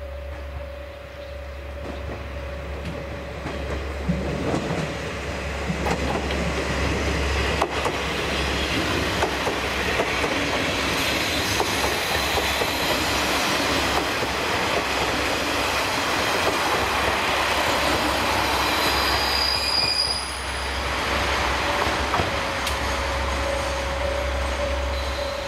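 Diesel railcar moving along the track through the station, with wheels running on the rails; the sound grows louder over the first several seconds. About three-quarters of the way in there is a brief high-pitched wheel or brake squeal, after which the sound eases a little.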